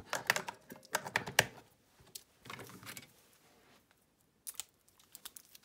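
Plastic clicks and knocks of AAA batteries being pressed into the battery compartment of a Casio fx-CG50 graphing calculator: a quick run of clicks in the first second and a half, a quiet stretch, then a few more clicks near the end.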